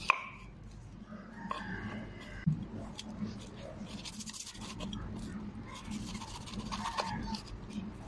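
Large kitchen knife slicing and scraping the rind off a pineapple, with a sharp knock of the blade right at the start and another about two and a half seconds in.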